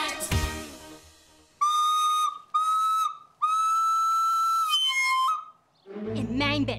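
A small yellow pipe blown in high, steady whistle notes: two short blasts and one long one at the same pitch, then a brief last note near the end. A song fades out just before them.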